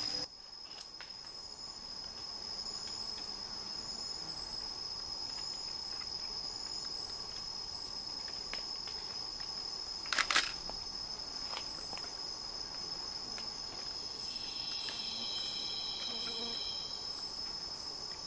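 Tropical rainforest insect chorus: one steady, high-pitched insect trill held throughout. A single sharp click comes about ten seconds in, and a short, faint pitched call follows a few seconds before the end.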